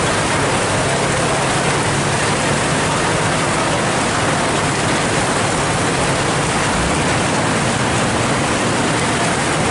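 Heavy downpour on a road: a loud, steady hiss of pouring rain and running water, with a faint low hum of idling vehicle engines underneath.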